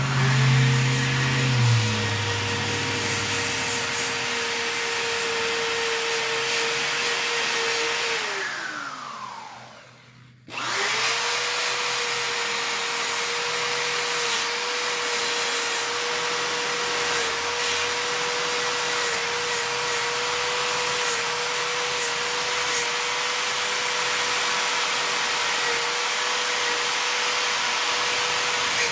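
Electric power tool motor running with a steady whine. About eight and a half seconds in it is switched off and winds down, falling in pitch, then it starts again almost at once and runs on steadily.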